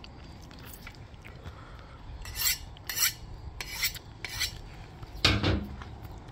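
A knife being honed on a steel: four quick scraping strokes of the blade along the steel, then a single louder knock.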